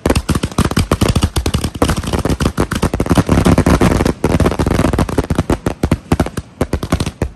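Consumer aerial fireworks (500 gram cakes and canister shells) going off in a finale barrage: a rapid, near-continuous volley of sharp bangs from shells bursting overhead, with a brief lull about four seconds in.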